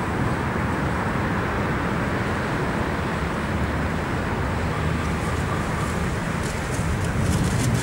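Steady rumble of street traffic, with a run of quick rattling clicks over the last few seconds.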